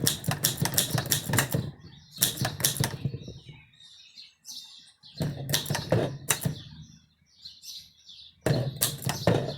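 1919 Corona No. 3 three-bank portable typewriter being typed on: rapid clacking key strikes in four bursts with short pauses between.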